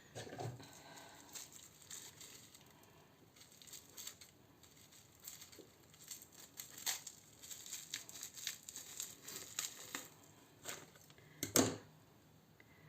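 Plastic or paper packaging rustling and crinkling as a new phone charger is unpacked and handled, with scattered small clicks and one sharp knock near the end.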